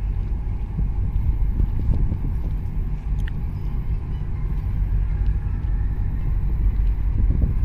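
Wind buffeting the microphone: a steady, uneven low rumble with no distinct engine note.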